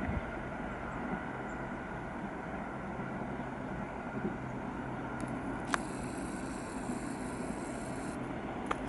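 Distant trains approaching along the tracks, a steady low rumble and hum. A brief click a little past the middle is followed by a high thin whine for about two and a half seconds.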